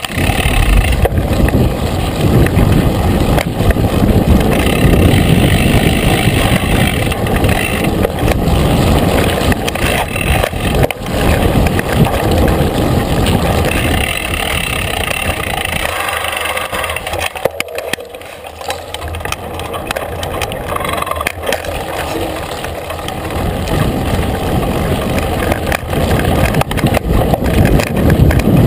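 Mountain bike riding over a dry dirt track: wind rumbling on the bike-mounted camera's microphone, knobby tyres rolling on gravel and the bike rattling over bumps. It eases for several seconds in the middle, then builds again.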